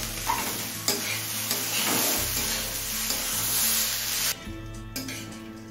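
Washed basmati rice sizzling as it fries in oil in a metal kadai, stirred with a spatula that scrapes and clicks against the pan. The sizzle drops away about four seconds in.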